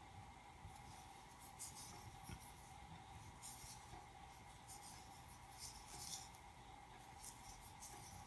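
Faint scratchy rustling of a metal crochet hook drawing worsted-weight yarn through stitches, in short irregular strokes, over a faint steady hum.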